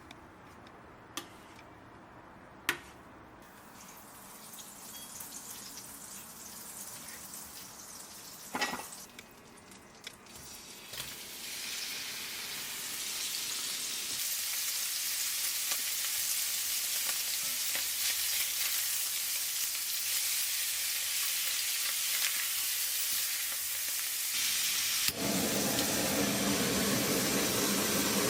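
Food frying in a pan. After a few light clicks and a knock, the sizzle builds from about twelve seconds in to a steady loud hiss, then suddenly grows fuller and louder near the end.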